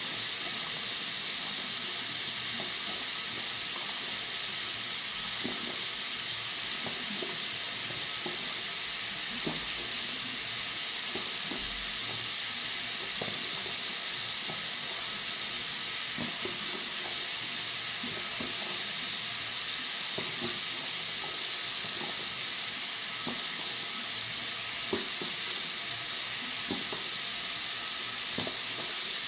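Tap water running into a bathroom sink: a steady hiss of flowing water with small splashes and droplet ticks scattered through it.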